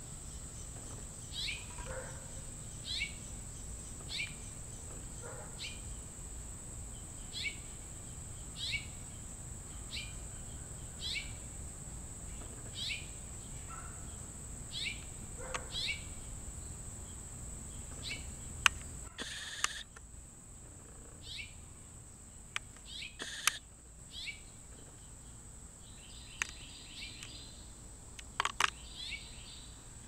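A bird giving a short, sharp chirp over and over, about every second and a half, with a steady high insect-like whine underneath. In the second half the chirps thin out and a few sharp clicks cut in.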